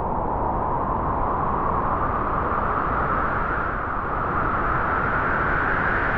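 Howling wind: a steady rush with a whistling howl whose pitch slowly rises.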